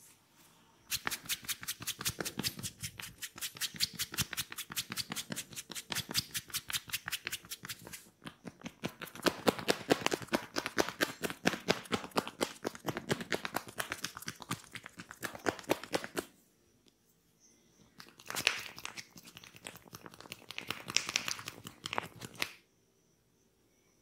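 Rapid chopping-tapping massage strokes of a masseur's joined hands on the shoulders and back, several sharp claps a second in a long steady run. It stops for about two seconds, then starts again more briefly.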